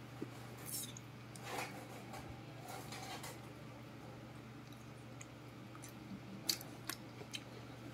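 Longans being peeled and eaten: faint crackling of the thin shells cracked open by fingers, with a few sharp clicks, two of them clearer near the end, and soft mouth sounds of eating. A steady low hum runs underneath.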